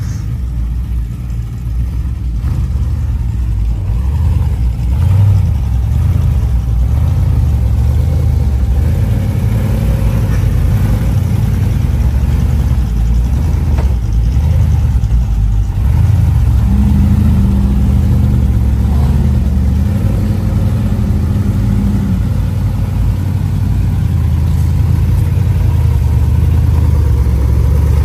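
Off-road 4x4's engine running at low revs on a rock-crawling trail, its revs rising and falling gently. It grows louder over the first few seconds, and a steady higher hum joins it for several seconds past the middle.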